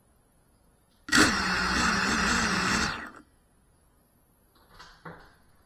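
A cinewhoop FPV drone's small electric motors and propellers whir for about two seconds, starting suddenly and then winding down, while the drone stays on the floor. Two faint soft knocks follow near the end.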